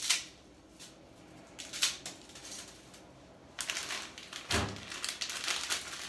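A sharp knock, then a lighter one, then from a few seconds in a run of crinkling and crackling as a plastic spaghetti packet is handled and opened.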